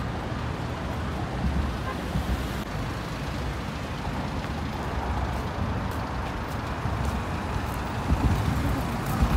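Road traffic noise: a steady rumble of cars passing on a multi-lane road, with a few low thumps near the end.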